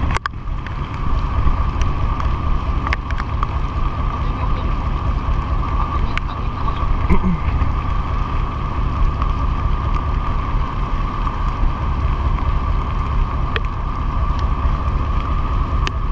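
Boat engine running steadily while under way, a constant low rumble with a steady whine above it, and wind buffeting the microphone; a few light clicks are heard.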